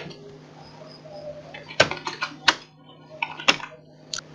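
Computer keyboard keys being typed: about half a dozen sharp, irregularly spaced clicks starting a little under two seconds in, over a faint steady low hum.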